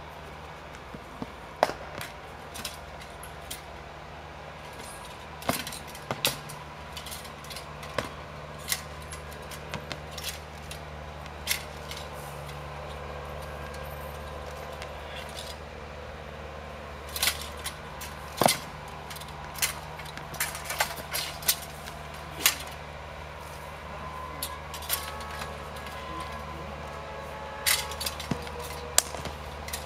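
Irregular sharp clacks and snaps from a Shaolin broadsword form being performed, coming in quick flurries over a steady low hum.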